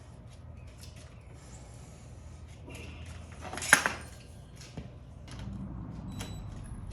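Hand tools and metal parts clinking and tapping during motorcycle disassembly, with one loud sharp metallic clank about halfway through.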